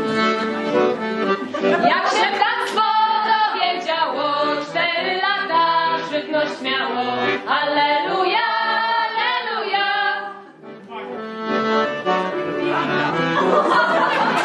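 Accordion music: a slow, wavering melody over held chords. It breaks off briefly about ten seconds in, then starts again.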